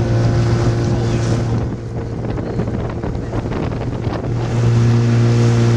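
Small boat's engine running at a steady hum, with wind rushing on the microphone and water noise. The engine hum drops back for about two and a half seconds midway, leaving mostly rushing wind and water, then comes back.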